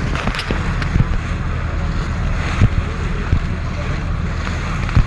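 Passenger motor ship's engine running steadily with a low hum, over the rush of wind and water, with several short wind thumps on the microphone.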